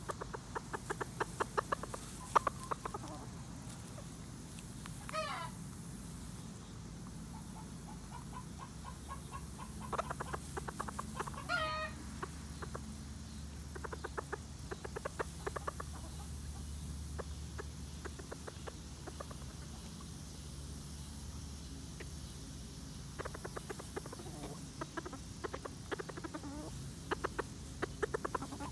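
Ko Shamo chickens clucking in short, quick runs, with two higher wavering calls about five and eleven seconds in.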